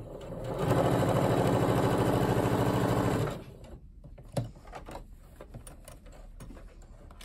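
Electric sewing machine stitching in one steady run of about three seconds, then stopping abruptly: a short seam sewn on the diagonal across two joined binding strips. Afterwards small clicks of fabric handling and a single knock.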